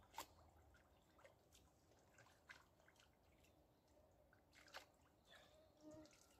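Faint, scattered drips and small splashes of water with a few light clicks, a few seconds apart, as hands work at the water's edge.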